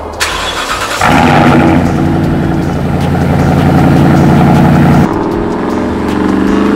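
V8 exhaust of a 2014 Toyota Tundra through a Borla cat-back system with Carven R-Series mufflers, a deep, loud engine note. The note comes in strongly about a second in and holds steady for about four seconds, then drops and starts to climb in pitch.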